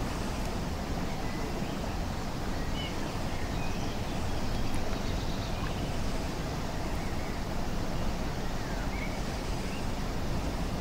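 Steady outdoor background noise: a low rumble with an even hiss over it, holding level throughout.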